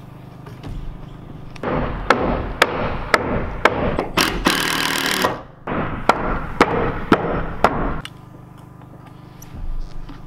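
Tool work on wooden subfloor panels: sharp knocks about twice a second, with a louder rasping burst lasting about a second near the middle. It quietens near the end.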